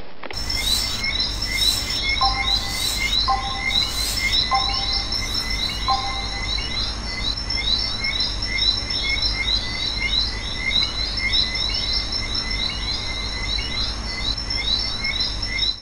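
Nature ambience of many small birds chirping rapidly and insects trilling steadily, over a low hum. A lower two-note call repeats four times in the first half.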